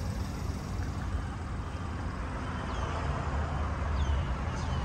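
Steady low outdoor rumble with no speech, a few faint high chirps near the end.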